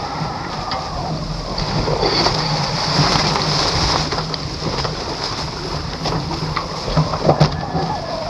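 Water rushing and spraying past the hulls of a Nacra 17 foiling catamaran at speed, with wind on the microphone and a steady low hum underneath. A few sharp knocks come near the end.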